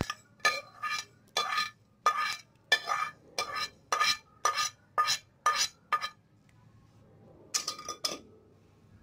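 A spoon knocks and scrapes against a hot pan to empty dry-roasted mustard seeds into a bowl. The sharp, ringing clinks come about twice a second, stop about six seconds in, then two more follow near the end.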